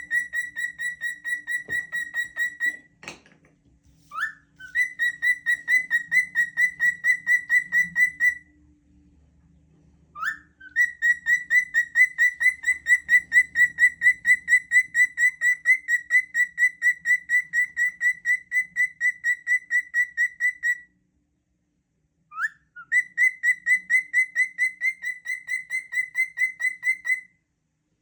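Cockatiel whistling a long run of identical quick notes at one steady pitch, about four a second. It comes in four long bursts, each opening with a short rising swoop, with brief pauses between.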